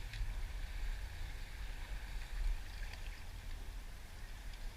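Shoreline ambience by open water: a low, uneven rumble with a faint steady hiss and a few small ticks.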